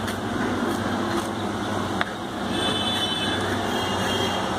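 A steady background hum and hiss, with a few soft knife taps on a wooden chopping board as fresh dill leaves are chopped.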